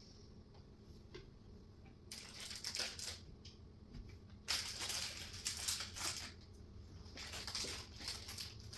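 Small loose assembly parts rattling and clinking as they are handled and sorted through, in three bursts: about two seconds in, four and a half seconds in, and near the end.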